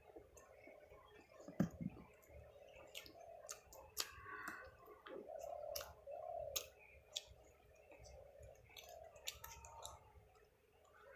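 Close-up eating sounds: soft chewing with sharp mouth clicks at irregular moments.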